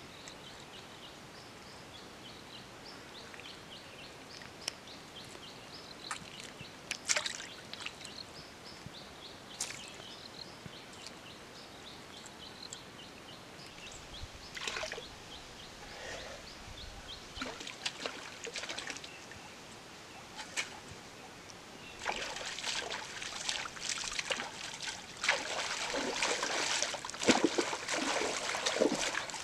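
Splashing of a person wading through a knee-deep stream, the loudest part and dense over the last seven seconds or so. Before that, quieter small splashes and drips of water.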